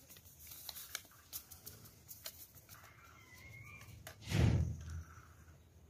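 Quiet crinkling and ticking of a small yeast packet being handled and tipped over a glass bowl of flour, with one short dull thump a little past two-thirds of the way through.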